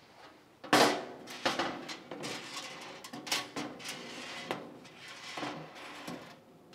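A clear plastic shelf panel knocking and clattering against a metal cabinet frame as it is set down and shifted into place. A sharp knock about a second in is the loudest, followed by a run of lighter knocks and scrapes.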